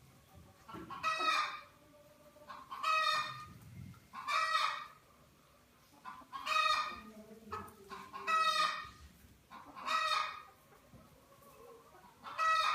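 Domestic fowl calling over and over: seven similar, loud, pitched calls, each under a second long, coming about every one and a half to two seconds.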